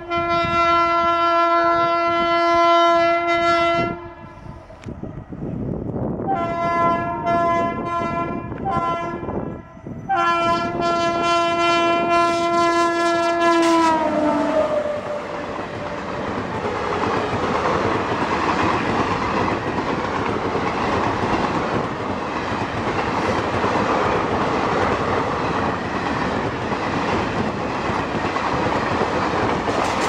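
WAP-7 electric locomotive's horn sounding three long blasts as it approaches at speed, the last one dropping in pitch as the locomotive passes. Then the express's coaches rush by with a steady rush of wheel-and-rail noise.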